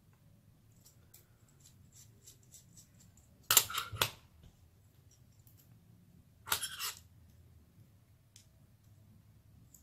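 Small aluminium RC-car rear-pod parts clicking faintly as they are handled, then a sharp clatter about three and a half seconds in as the pod is set down on the flat setup board, and a second, softer clatter of the parts around six and a half seconds.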